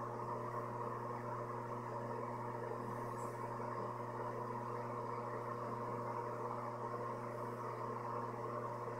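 Steady machine hum made of several fixed tones over a light hiss, unchanging throughout.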